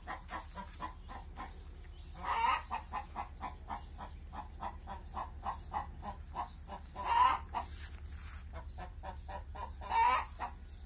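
Chickens clucking steadily, about four clucks a second, with three louder calls standing out.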